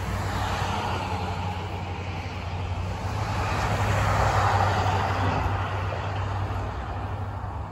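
A motor vehicle going by: a steady low engine hum under road noise that swells to a peak about halfway through and then fades.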